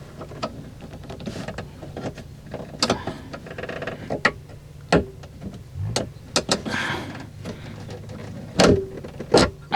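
Irregular clicks, knocks and scrapes from hands and a screwdriver working inside a car door, as the loose window glass is lifted and pried off its window-regulator pin, with a steady low hum underneath.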